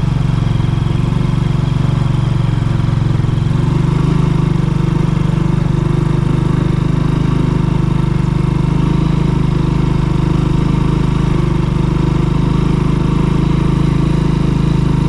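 A vehicle's engine running steadily while under way, a constant low drone with no change in pace.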